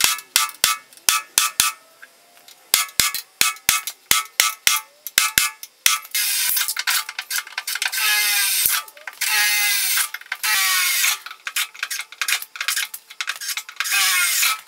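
Sharp hammer taps on steel, in quick groups, followed by a cordless drill boring holes through the Mini's steel floor plates for plug welds, running in short bursts with its speed rising and falling.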